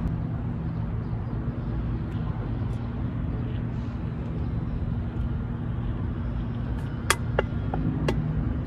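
Grass-cutting machine engine running steadily as an even low drone. A few sharp clicks and taps come near the end.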